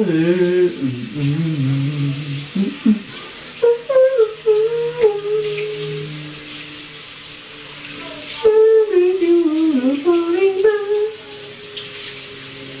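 Water running steadily from a tap, with a person singing over it in long, wavering notes.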